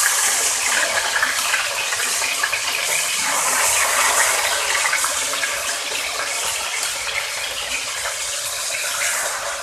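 Chicken pieces frying in hot oil in a wok: a steady, dense sizzle that eases slightly toward the end.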